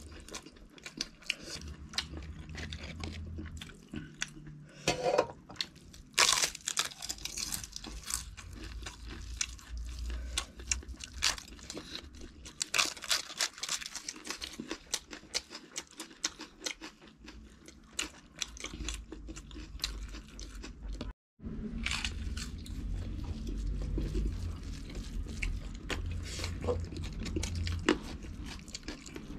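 Close-up eating sounds: wet chewing and smacking of rice and curry eaten by hand, with sharp crunches of fried papad being bitten. The sound drops out completely for a moment about two-thirds of the way through.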